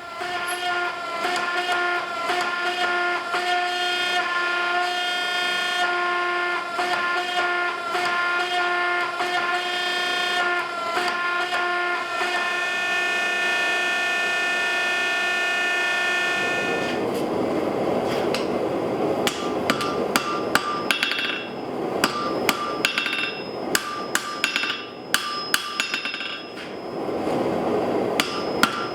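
Hammer striking steel on the 160 lb Trenton anvil in rapid, repeated forging blows. For the first half the anvil rings with a steady metallic tone under the blows; in the second half the blows land duller, with little ring.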